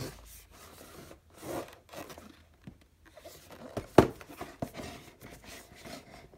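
Cardboard product box being handled and turned over by hand: rustling and scraping of hands against the cardboard, with a sharp knock about four seconds in.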